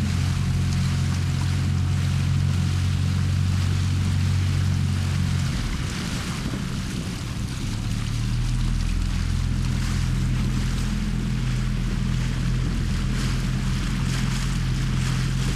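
Motorboat engine running steadily, its note changing about five seconds in. Water rushes and wind noise sits underneath.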